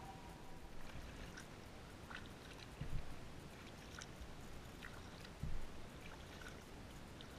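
Quiet paddling in an inflatable kayak on calm water: faint drips and trickles of water with small ticks, and two low thumps, one about three seconds in and one about five and a half seconds in.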